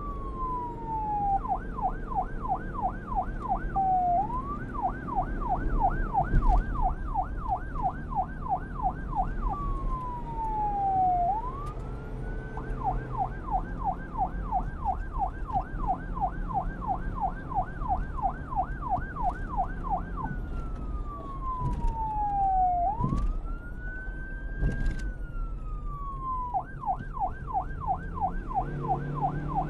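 Police siren alternating between a slow wail, falling and rising over two or three seconds, and a fast yelp of about three or four sweeps a second.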